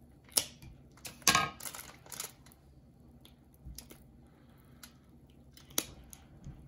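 Kitchen shears snipping through a raw chicken leg's joint: three sharp snips in the first two seconds or so, the middle one loudest. A single sharp click follows near the end.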